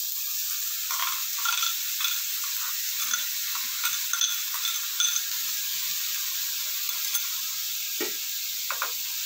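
Chopped onions sizzling in hot olive oil in a frying pan: a steady hiss with small crackles and pops scattered through it, thickest in the first half.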